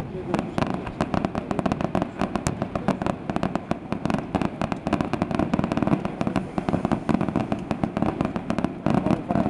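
Fireworks display: a dense, unbroken barrage of aerial shell bursts and crackling reports, several bangs a second.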